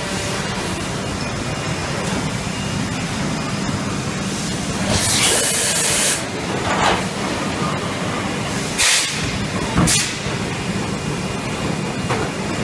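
PET preform injection moulding machine running with a steady hum. It gives a loud hiss of compressed air lasting about a second, then two short sharp hisses a few seconds later.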